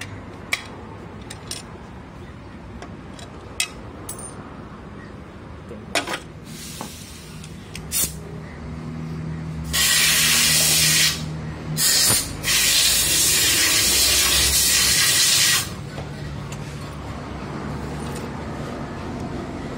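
Pressurised spray hissing in three blasts, the last about three seconds long, with a few light metal clicks before it.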